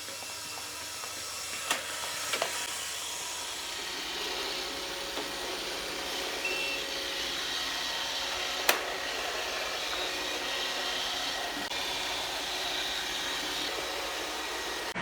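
Robot vacuum cleaner running: a steady whir of its motor and brushes with faint humming tones. A few sharp knocks stand out, two close together about two seconds in and one louder one about nine seconds in.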